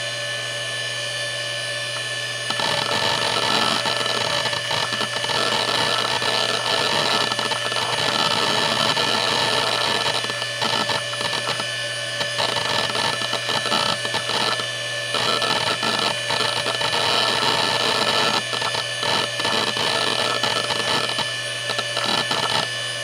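Seagate Barracuda 9LP ST39173W 7,200 RPM ball-bearing SCSI hard drive spinning with a steady low hum and high whine. From about two and a half seconds in there is rapid, irregular clicking of head seeks as the drive is read during an operating-system boot.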